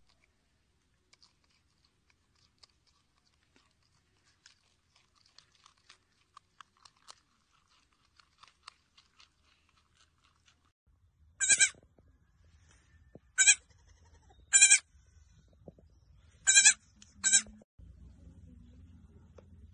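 Faint crunching clicks as a marmot chews a piece of carrot. Then a young goat kid bleats five short times over about six seconds.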